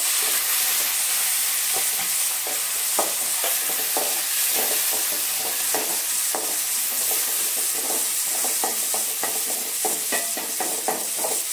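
Chopped tomatoes, onion and garlic sizzling in hot oil in an aluminium kadai, with a steady hiss. A wooden spatula stirs them, scraping and knocking against the pan in many short, irregular strokes.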